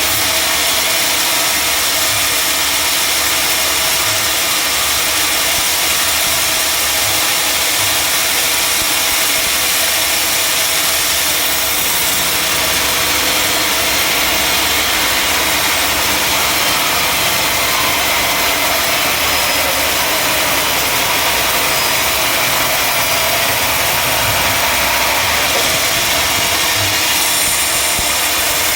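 Sawmill machinery running steadily: a loud, even mechanical noise with no separate knocks or changes.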